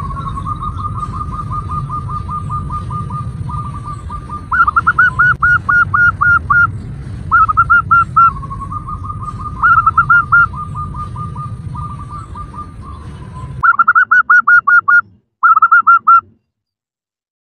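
Female zebra dove (perkutut) calling: long strings of quick, soft trilled coo notes broken by louder, faster runs of repeated notes. A low background rumble runs underneath and cuts off abruptly near the end.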